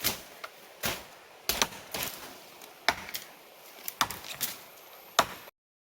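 A blade chopping, about ten sharp separate chops at an uneven pace, each a short crack.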